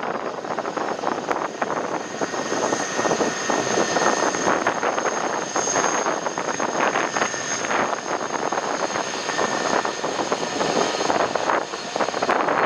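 Jet airliner engines: a steady rushing noise that rises and falls, with a faint high whine held above it.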